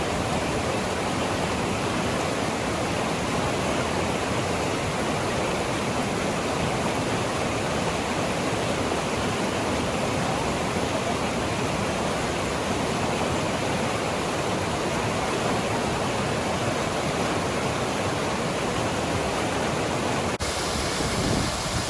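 Waterfall at Crescent Falls, a steady, full rush of falling water with no change in level. It dips briefly for an instant near the end.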